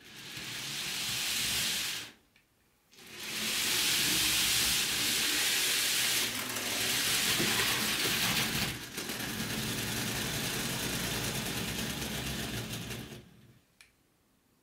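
Bachmann N-scale electric model train running on its track: a steady whirring hiss of motor and wheels with a low rumble underneath. It cuts out for about a second about two seconds in, then runs on and stops near the end.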